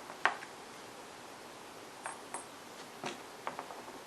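A few light clicks and clinks, about six of them, scattered through quiet room tone. Small metal hardware such as bolts and lock washers is being handled while a pressure-washer pump is fitted.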